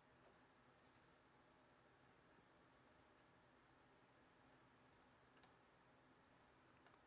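Near silence: faint room tone with small sharp clicks roughly once a second.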